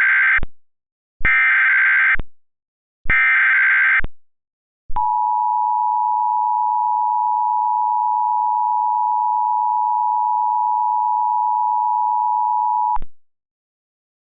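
Emergency Alert System SAME header: the end of one burst of chirping digital data tones, then two more bursts about a second long each with short gaps between them. They are followed by the EAS two-tone attention signal (853 and 960 Hz), held steady for about eight seconds and then cutting off sharply. The tones herald a severe thunderstorm warning.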